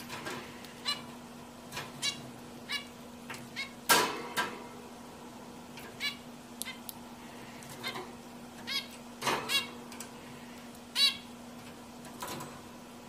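Male zebra finch giving a series of short, sharp calls at irregular intervals, the loudest about four seconds in and again near eleven seconds.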